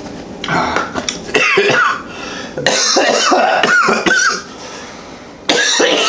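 A man coughing hard in several bouts, the burn of ghost pepper hot sauce catching in his throat.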